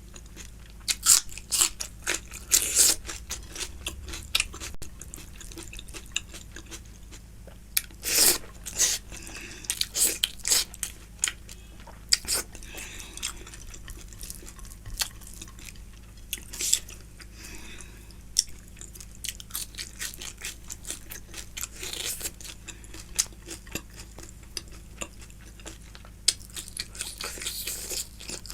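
A person chewing and crunching food close to the microphone, with many short wet mouth clicks and louder crunchy bites now and then.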